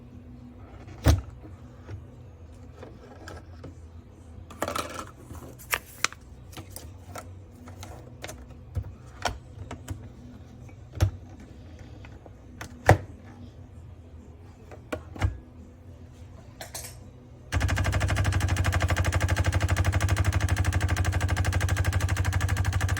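Scattered clicks and knocks of a Tassimo by Bosch Suny coffee machine being handled, then, about three-quarters of the way through, its pump starts suddenly with a loud, steady, rapid buzz as it begins to brew.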